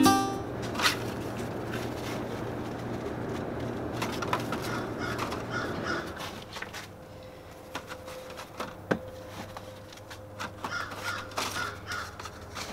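Birds calling in two short runs of harsh caws, about five seconds in and again near the end, over scattered light clicks and knocks from plastic seedling pots being handled.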